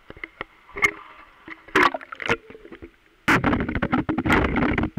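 Water sloshing and gurgling around a camera held underwater, with scattered clicks and knocks from fingers handling its housing, then a sudden loud stretch of rushing, rubbing noise about three seconds in.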